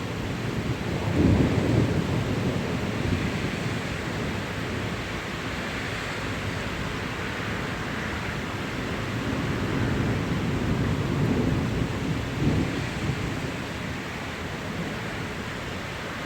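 Thunderstorm: steady rain falling with rolls of thunder rumbling, one strongest about a second in and another building from about ten seconds to near thirteen.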